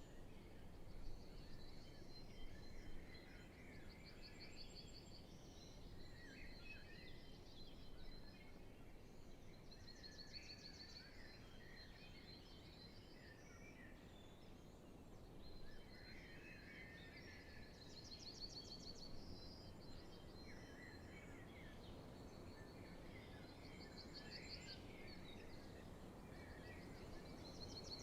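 Faint spring dawn chorus of songbirds. One bird repeats a high, fast trilled phrase every few seconds, while others sing scattered lower phrases. A steady low background hush runs beneath.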